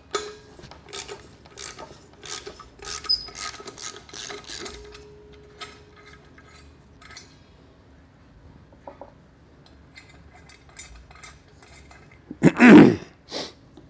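Ratchet wrench clicking as it backs out the bolts holding a transmission's brake drum and slip-yoke flange. The clicks come in quick runs for the first few seconds, then thin out. Near the end there is a short, louder vocal sound.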